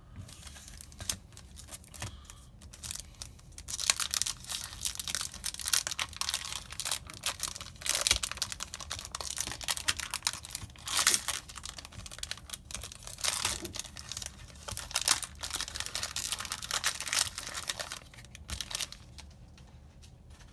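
Foil booster-pack wrapper being torn open and crinkled by hand: a dense run of crackling and rustling from about three and a half seconds in until shortly before the end, with lighter handling noises either side.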